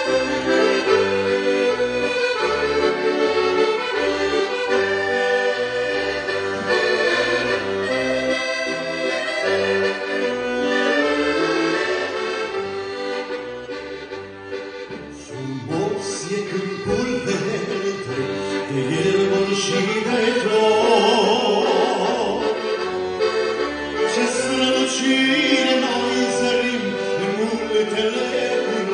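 Elkavox piano accordion playing a melody over a regular bass-and-chord accompaniment; about halfway through, a man's voice comes in singing with vibrato over the accordion.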